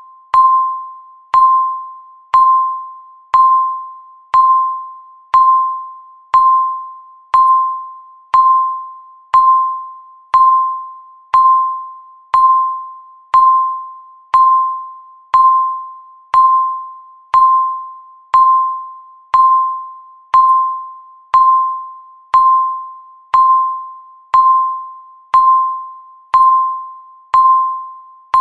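Electronic countdown-timer tick: a sharp click with a short, single-pitched ringing ping that fades quickly, repeating steadily about once a second.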